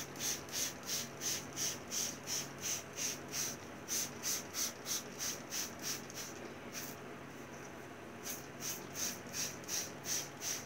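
Water-and-glue mix being applied over flocked moss terrain in quick, even strokes, about three a second, with a short pause partway through before they resume. The glue coat sets the flocking so it does not shed.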